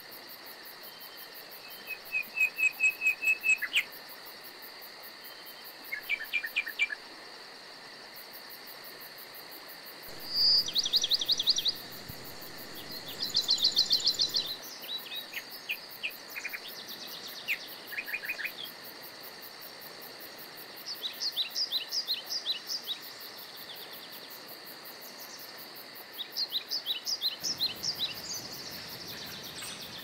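Songbirds chirping in short, rapid trilled phrases that recur every few seconds, over a steady high insect drone, like crickets.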